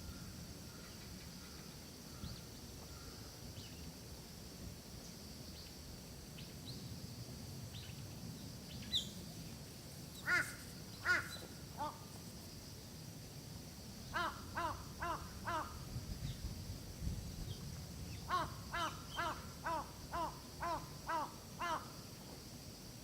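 A crow cawing. A few single caws come about ten seconds in, then a quick run of about six caws and, after a short pause, a run of about nine.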